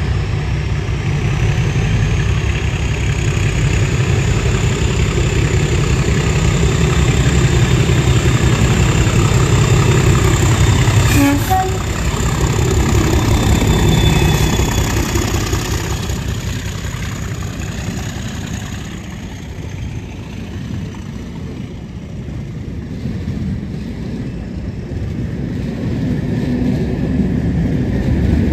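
Class 37 diesel locomotives with English Electric V12 engines passing at close range under power. The lead locomotive's engine rumble builds to its loudest about ten to fourteen seconds in, with a high turbocharger whistle that falls slowly in pitch as it goes by. The sound eases as the hauled stock rolls past, then grows again near the end as the second Class 37 approaches.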